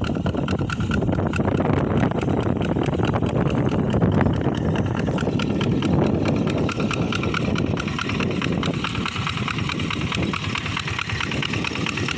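Tractor engine running steadily under load while plowing, with a fast, even chugging.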